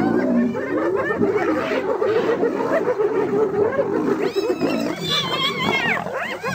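Hyenas in a mob calling at once: many short yelping calls overlapping, each rising and then falling in pitch, over a dense layer of growling. The calls grow thicker and higher about two-thirds of the way in.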